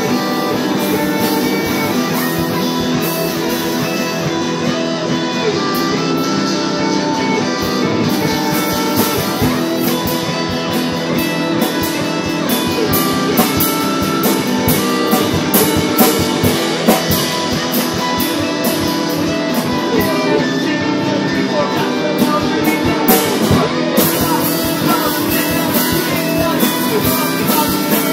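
Guitar-led rock music from a band's demo recording, guitars playing over a drum kit.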